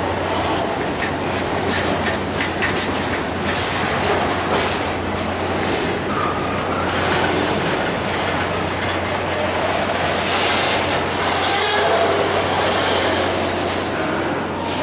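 Freight train of covered hopper cars rolling past close by: steel wheels clack over the rail joints with a steady rumble. Brief squeals of wheels on the rail come in the second half.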